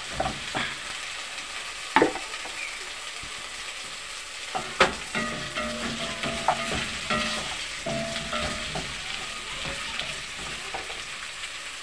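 Wooden spoon stirring beef stew and potato chunks in a pot on a gas flame, over a steady sizzle of frying. The spoon knocks sharply against the pot a few times, loudest about two and five seconds in.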